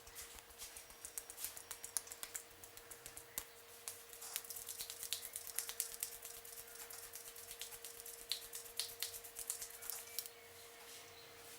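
Hands working on a person's head and hair in an Indian head massage: a run of quick, crisp taps and clicks, densest from about four to ten seconds in, over a faint steady hum.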